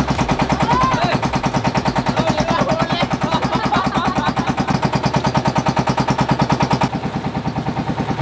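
Fishing boat's engine running under way, a rapid, even putting of about ten beats a second, with the rush of the hull through the water.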